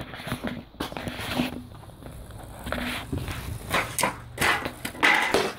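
Handling noise from a phone being carried by hand while someone walks: irregular rubbing and knocks on the microphone, mixed with footsteps.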